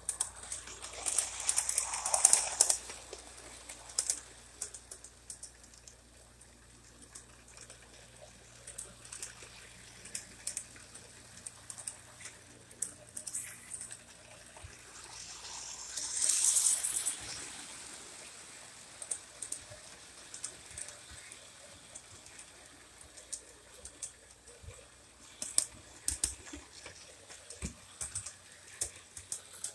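O gauge model train running on 027 tubular three-rail track: irregular light clicking and clacking as the wheels cross the rail joints. Two louder stretches of rushing noise come near the start and about halfway through.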